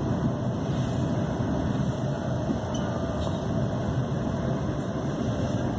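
Inside the carriage of a Class 350 electric multiple unit running at speed: a steady low rumble of wheels on rail and running gear.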